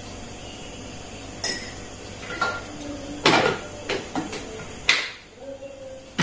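A metal spoon clinking against a steel mixer-grinder jar, then the jar being handled and set back onto the mixer base. The result is a series of sharp clinks and knocks, the loudest a little past the middle, over a steady background hum.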